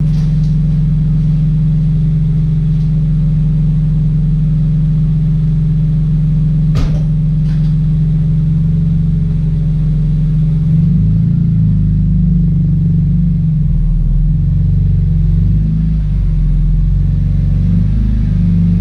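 Car engine running steadily and loudly, its pitch and rhythm shifting about 11 seconds in, with one brief click partway through.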